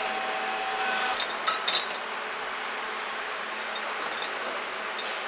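Steady industrial factory noise, with a few sharp metallic clinks about a second and a half in.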